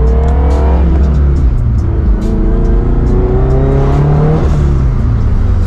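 Toyota 86's FA20 flat-four engine revving up twice: the pitch climbs for about a second and drops, then climbs again for a couple of seconds and falls away near the end.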